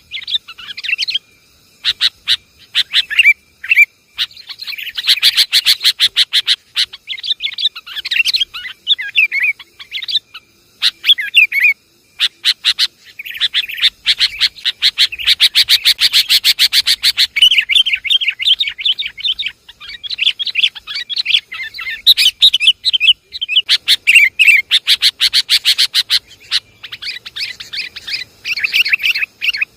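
Bird-lure recording of sooty-headed bulbuls (kutilang) calling noisily: dense, rapid rattling chatters and bubbly calls, broken by short pauses.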